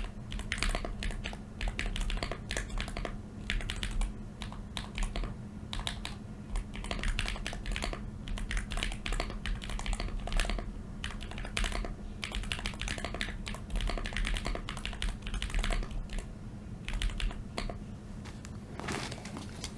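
Continuous fast typing on a hand-soldered Contra 40 40% mechanical keyboard with tactile switches: a dense, irregular run of key clicks.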